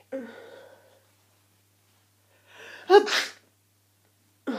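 A person sneezing once, loudly, about three seconds in, after a short in-breath, in a fit of hayfever-and-cold sneezes. There is a brief voiced breath at the start and another at the very end.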